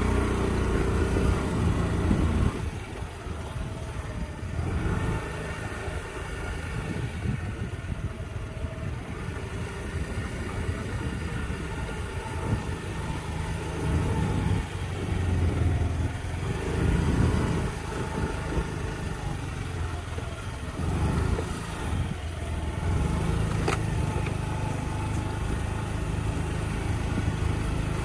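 Small motorcycle engine running as it rides along, its note rising and falling with the throttle several times.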